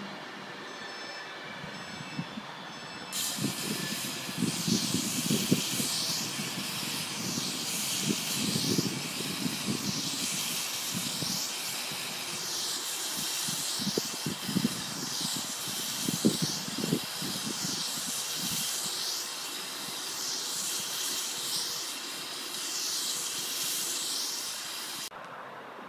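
Long, loud hiss of air from a train standing at the platform, starting sharply about three seconds in and cutting off sharply near the end, with irregular low rumbles underneath.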